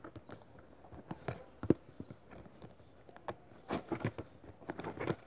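Small scissors cutting and prying through the clear packing tape sealing a cardboard box, with cardboard rubbing: a series of faint, irregular clicks and scrapes.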